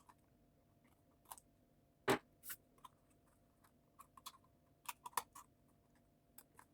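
Scissors trimming off overhanging paper, with a few separate short snips and clicks. The loudest comes about two seconds in, and a quick cluster follows around five seconds.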